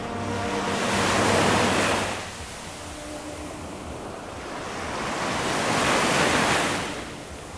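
Small waves washing in over a shallow shore, swelling twice: once about a second in and again around six seconds in.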